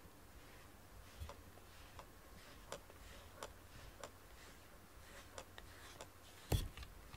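Grooming brush stroked through a cat's coat: faint, short scratchy ticks at irregular spacing, roughly one a second. A louder knock comes near the end.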